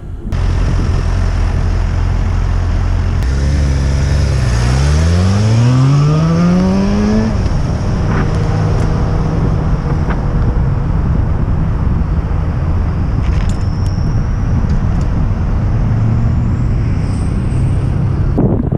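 A motor vehicle engine running close by, then accelerating away with a steady rise in pitch over about three seconds. After that comes a loud, even rush of wind and road noise as the bike rides on.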